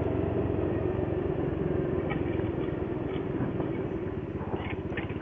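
Motorcycle engine running steadily while being ridden, with road and wind noise.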